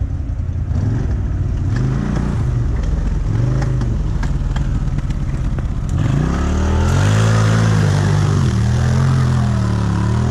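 Off-road vehicle engine revving under load, its pitch rising and falling over and over, with scattered clicks and knocks; from about six seconds in it gets louder and revs higher, rising and falling in long swells.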